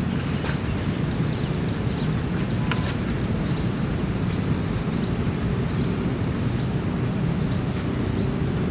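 Outdoor ambience: a steady low rumble of background noise, with small birds chirping repeatedly and faintly above it.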